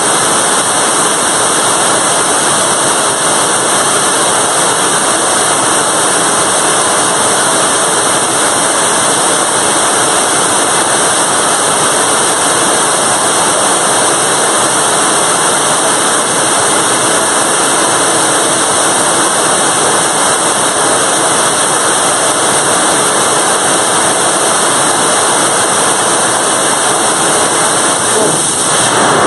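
BPM-5 bi-propellant rocket engine firing on a test stand: the exhaust jet makes a loud, steady, unbroken rushing roar that holds even throughout.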